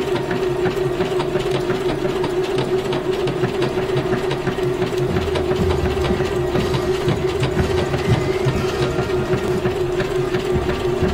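Singer Confidence 7640 computerized sewing machine running steadily: an even motor hum with rapid ticking of the needle mechanism. The sound grows a little fuller about halfway through.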